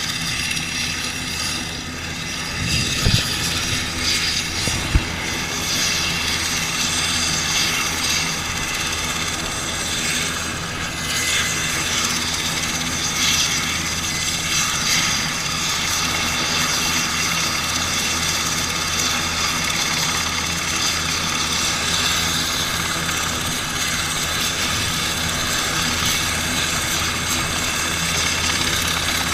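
Military transport helicopter running on the ground, its turbine engines and rotor giving a loud, steady whine and drone. Two brief sharp knocks about three and five seconds in.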